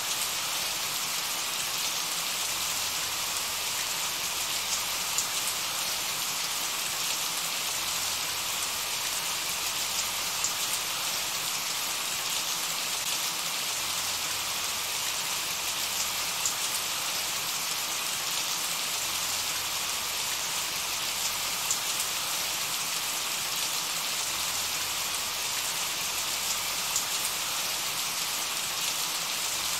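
Steady rain falling: an even hiss with scattered sharper ticks of single drops.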